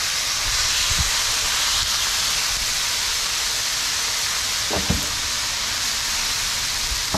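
Raw sirloin steaks sizzling on a hot Blackstone steel flat-top griddle, a steady hiss, with a short knock about a second in and another near five seconds as more steaks are laid down.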